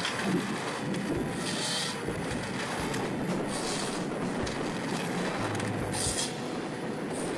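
Forestry harvester working: steady machine noise, with short, high-pitched squeals or hisses coming three times, about two seconds apart.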